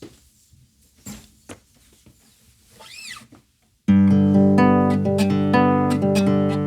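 A few faint taps and handling clicks, then about four seconds in a Versalis Mini Jumbo nylon-string acoustic guitar starts suddenly, playing loud ringing chords and melody notes.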